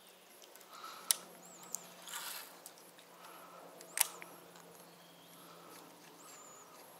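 Two sharp clicks about three seconds apart, with a softer click and a brief rustle between them, over a faint low hum and a few thin, high chirps.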